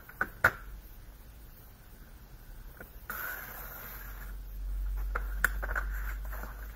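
Paper trimmer cutting patterned paper: a few clicks as the sheet and cutting head are set, then a scraping hiss about three seconds in as the blade slides along its track through the paper, followed by more light clicks.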